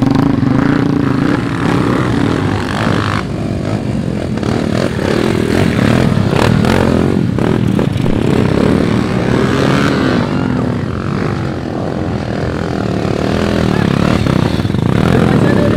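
Enduro dirt bike engines running and revving on track, several engine notes overlapping as their pitch rises and falls.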